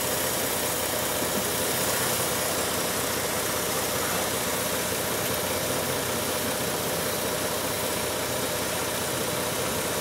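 The 3.7-litre V6 of a 2007 Jeep Grand Cherokee idling steadily, its idle speed held high by a vacuum leak at an O-ring in a tube.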